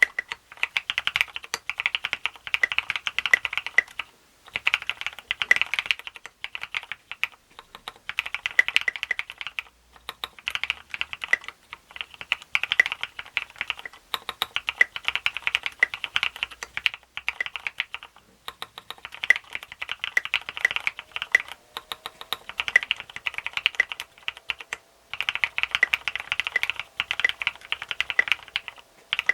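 Typing on a Duck Eagle v3 mechanical keyboard with retooled Cherry MX Black linear switches, SA-profile keycaps and a plastic plate in a top mount: rapid runs of keystrokes with a clacky, mid-pitched sound, broken by brief pauses every few seconds.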